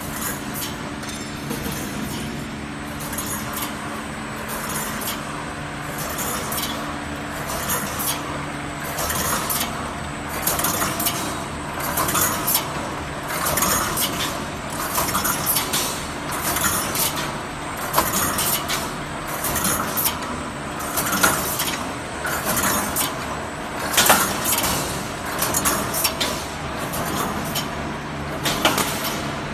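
Wire mesh welding machine for 358 fence mesh running, a steady hum under a regular metallic clanking about once a second as it works through its welding and mesh-feeding cycle.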